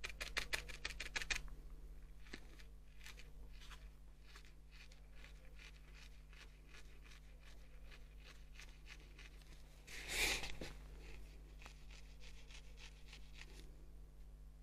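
Barbed felting needle stabbing into white wool over a foam felting pad: soft, quick taps, a dense run at the start and then sparser ones. A brief louder rustle of handled wool comes about ten seconds in.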